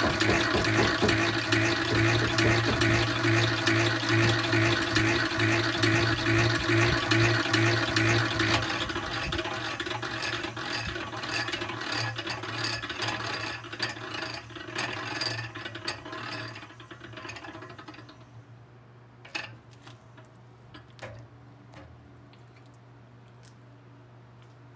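Honey extractor spinning frames of honeycomb in its stainless steel drum, a steady whirr with rattling. About eight seconds in it starts to slow and fade, and it runs down to a stop near the end. A few sharp clicks and knocks follow.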